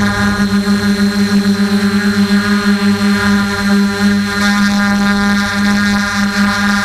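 DJI F450 quadcopter's electric motors and propellers droning steadily while hovering, picked up by a camera on the frame. The drone holds one steady pitch with many overtones and a faint high whine above it, and its loudness pulses rapidly.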